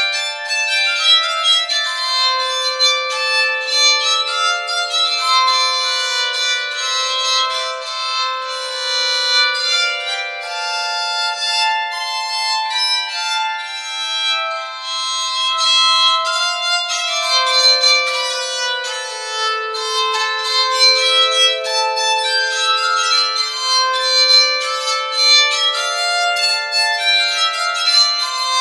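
Bowed psaltery played with a double bow: a melody of long, overlapping bowed notes, often two sounding at once, all in the instrument's upper range.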